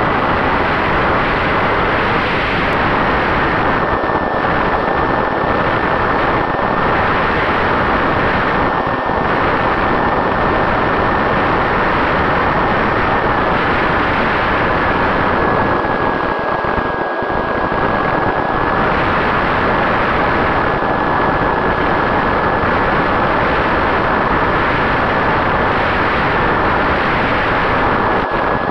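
Onboard sound of an HD-Wing RC flying wing in flight: the electric motor and propeller give a steady high whine that shifts slightly lower and back up a few times, under a heavy rush of airflow on the microphone.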